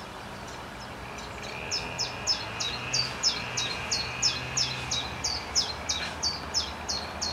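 Common chiffchaff singing its chiff-chaff song: a run of short, high, downward-sliding notes at about three a second, starting clearly about two seconds in after a few fainter notes.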